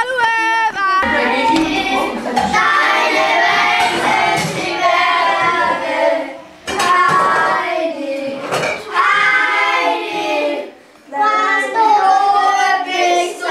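A group of children singing together, several voices overlapping. The singing breaks off briefly about six seconds in and again near eleven seconds.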